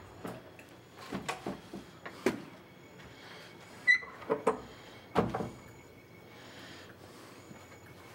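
A string of short clinks and knocks: a knife and fork against a china plate, then a door being opened and a few knocks around four to five seconds in.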